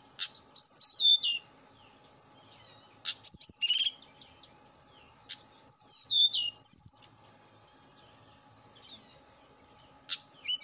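Tledekan gunung, a blue-and-orange flycatcher, singing: three quick phrases of high, sweet whistled notes sliding downward, each opened by a sharp note, with a fourth phrase starting near the end.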